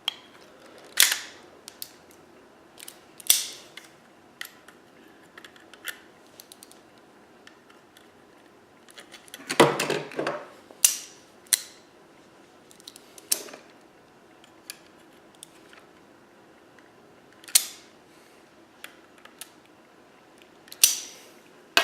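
Scattered clicks, taps and short scrapes of hand and tool work on a fire alarm pull station, with a louder, longer scraping burst about ten seconds in.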